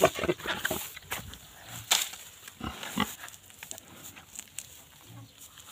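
Domestic boar grunting in short, abrupt bursts, busiest and loudest in the first three seconds and sparser and quieter after.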